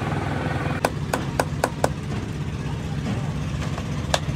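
Sharp metallic hammer blows on the parts of a truck gearbox being dismantled: a quick run of about five strikes a second in and a few more near the end, over a steady low engine hum.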